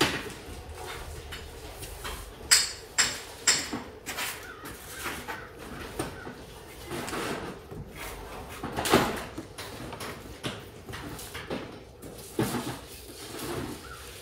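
Irregular knocks, clicks and clatters from hands-on work with tools and electrical wire at a wooden stud wall. A few sharper knocks stand out, about two and a half seconds in and again near nine seconds.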